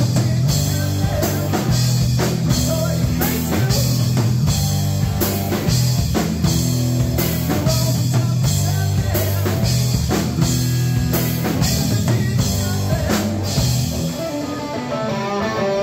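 Live rock band playing: electric guitar, electric bass and a drum kit with steady beats and cymbals. The playing gets a little quieter near the end.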